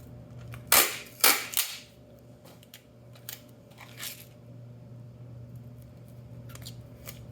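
Packing tape pulled off the roll in three short, loud rips about a second in, then a few faint rustles as it is wrapped and pressed onto a cardboard tube.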